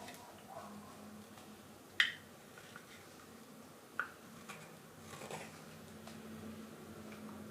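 Carving knife cutting shavings from a green wild cherry spoon blank: a few short, sharp cuts, the loudest about two seconds in and another about four seconds in, with fainter cuts between.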